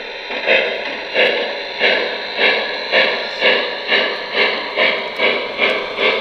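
Electronic steam chuffing from the sound system of a Lionel O gauge 2-6-0 Strasburg #89 steam locomotive as it runs. The chuffs come about two a second and quicken slightly.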